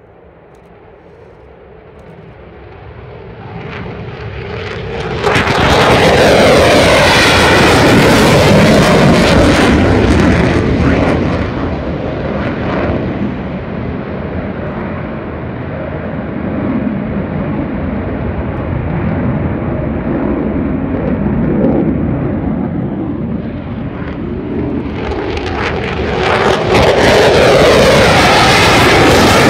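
Military fighter jets taking off and climbing out. The jet noise builds to full loudness about five seconds in, with a sweeping, phasing whoosh as a jet passes, eases to a lower rumble, and swells loud again near the end as a twin-engined F-15E Strike Eagle goes over.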